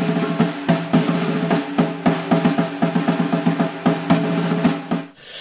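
Music: a fast, uneven snare-drum roll and fills over a held low note, cutting off sharply about five seconds in.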